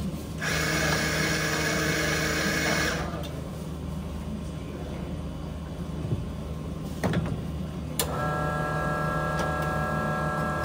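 Espresso machine running: a low steady hum, a hiss lasting about two and a half seconds near the start, two sharp clicks, then a steady motor whine from about eight seconds in.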